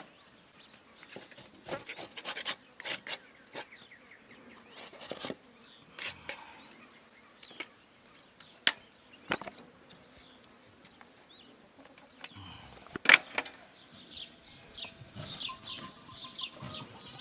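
Irregular sharp knocks and taps of wood being worked, a dozen or so spread unevenly, the loudest about 13 seconds in. Small birds chirp in the last few seconds.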